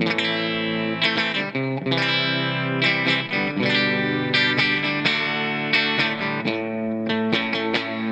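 Squier Classic Vibe Telecaster Custom on its bridge single-coil pickup, chords strummed and left to ring through a clean Marshall amp channel with a little reverb and compression. The chords are re-struck about once a second, with quicker strums near the end.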